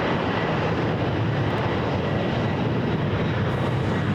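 Jet airliner engines running, a steady rumbling noise with no change in level.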